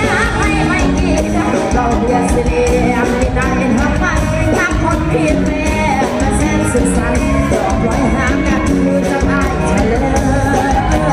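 Live Thai mor lam band music with a singer's voice over a steady band backing.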